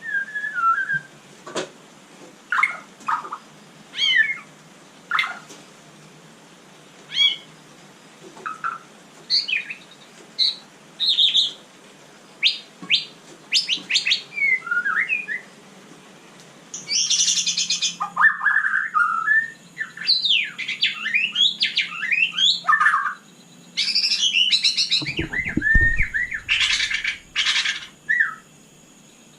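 White-rumped shama singing: scattered short whistled notes and chirps about once a second at first, then from about halfway a denser, faster run of whistles mixed with harsh rasping notes. A brief low thud near the end.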